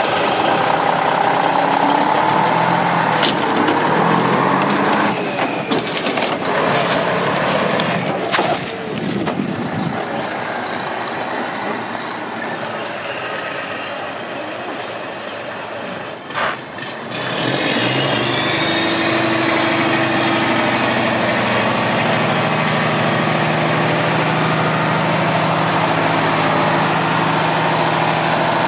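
2003 Mack CH612 day cab tractor's diesel engine running as the truck moves off, growing quieter for a stretch in the middle, then running steadily close by for the last ten seconds or so. Two brief sharp sounds cut through, about eight seconds apart.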